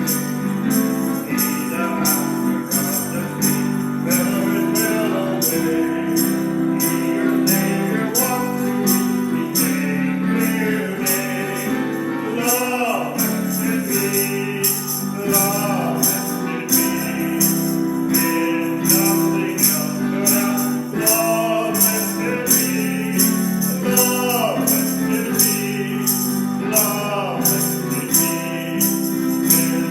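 Gospel music with sustained chords under a melody that now and then glides in pitch, kept in time by a steady jingling percussion beat.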